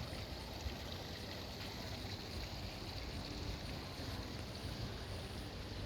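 Steady low rumbling background noise with a light hiss and no distinct events.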